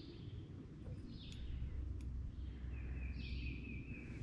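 Songbirds chirping in short calls, with one wavering trill lasting over a second near the end, over a low steady rumble.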